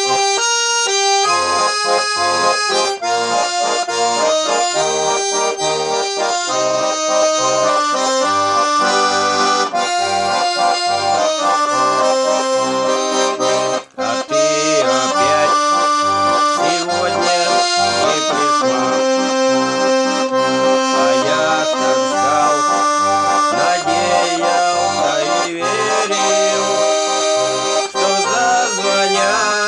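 Garmon (Russian button accordion) playing solo with no singing: a melody over a pulsing bass-and-chord accompaniment, with one brief break about halfway through.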